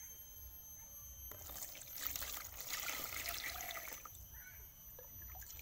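Water pouring and trickling into a plastic tub, starting about a second in and easing off after about four seconds.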